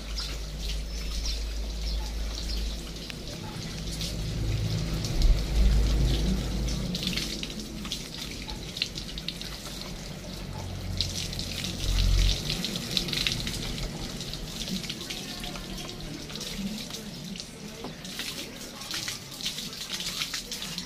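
Water from a garden hose splashing and pattering over a motorcycle's bodywork as it is rinsed. A low rumble runs beneath it for about the first twelve seconds, loudest around five and twelve seconds in, then dies away.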